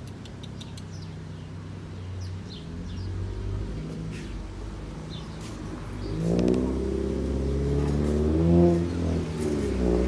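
A motor vehicle's engine running and passing by, its pitch rising and falling and loudest in the second half. A few faint bird chirps come in the first half.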